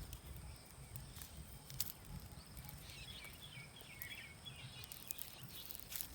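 Faint outdoor background noise with a low rumble and a few soft clicks, and a short high chirping from about three seconds in.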